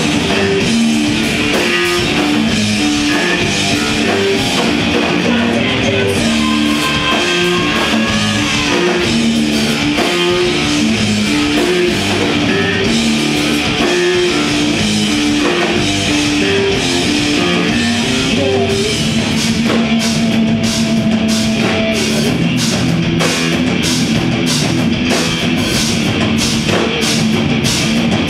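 Live progressive rock/metal band playing loud: electric guitars and bass pick a repeating riff over drums. About two-thirds of the way through, the riff gives way to a held low note with steady drum and cymbal hits about twice a second.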